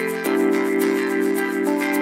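Background music: held synth-like chords that change about a quarter second in and again near the end, with a light regular tick on top.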